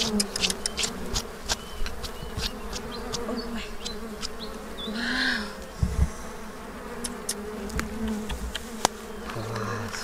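A cluster of honey bees buzzing: a steady mass hum, with single bees passing close and briefly rising and falling in pitch. Scattered light clicks run through it, and there is a short hiss about halfway.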